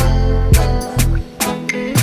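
Background music with a steady beat, about two hits a second, over a bass line.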